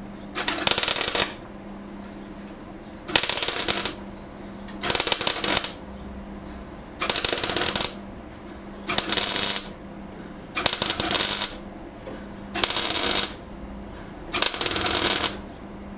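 Welding arc crackling in eight short bursts, each under a second and about two seconds apart: stitch-welding a new steel repair patch into the rusted wheel arch of a 1988 Classic Mini. A steady low hum runs underneath.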